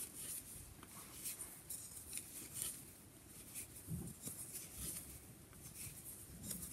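Faint, scattered soft clicks and scratchy rustles of 10 mm wooden knitting needles and chunky wool as knit stitches are worked.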